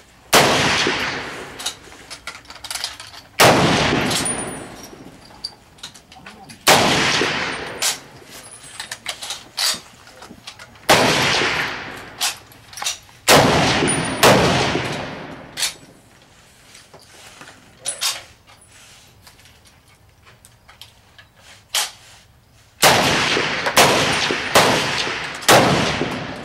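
Rifle shots from a line of several shooters, fired at irregular intervals. Some are loud and close, each trailing off in an echo over a second or two, and others are fainter, from further down the line. Near the end come about four shots roughly a second apart.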